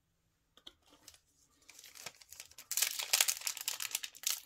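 Foil Yu-Gi-Oh! booster pack wrapper crinkling as it is torn open by hand, starting faintly about two seconds in and growing louder, after a few light taps.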